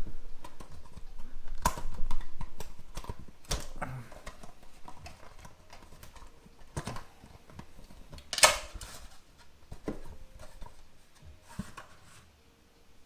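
Small cardboard retail box being handled and opened: irregular taps, clicks and short rustles of card and packaging, with a sharper knock about eight and a half seconds in.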